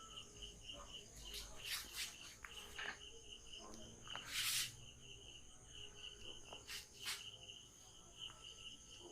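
Faint insects chirping steadily in a quick pulsing rhythm, with a few scattered light clicks and one short hiss about halfway through, the loudest sound.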